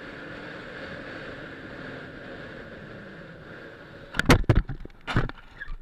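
Steady road and engine noise of a moving car as picked up by a dash cam, then from about four seconds in a run of loud, sharp bangs and knocks, four or so within two seconds.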